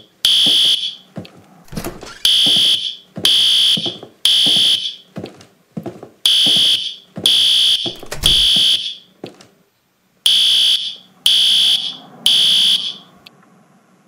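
Fire alarm sounding a loud, high-pitched beep in the temporal-three evacuation pattern: three half-second beeps about a second apart, then a pause, repeating.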